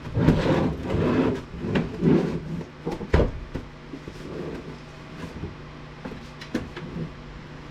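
Clattering and knocking of metal parts and hand tools as an APC backup power unit is taken apart. There is a busy stretch of rattling at the start, a sharp knock about three seconds in, and a few light clicks later, over a faint steady hum.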